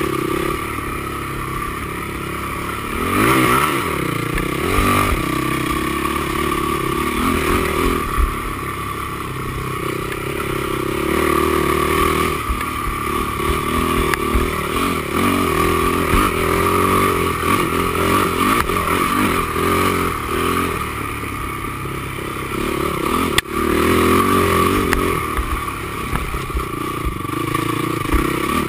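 Honda TRX450R quad's single-cylinder four-stroke engine running under load, revving up and down, with the machine rattling and clattering over rough ground. A sharp knock comes about 23 seconds in.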